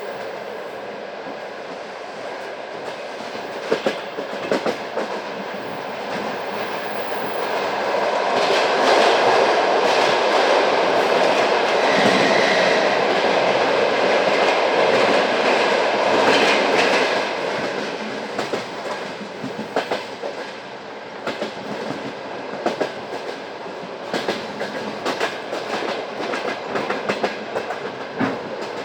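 Passenger train wheels running on the rails, heard from aboard a coach, with clicks from the rail joints. The running noise swells to a louder rumble about eight seconds in, holds for around nine seconds, then eases back, and the clicks come thicker toward the end.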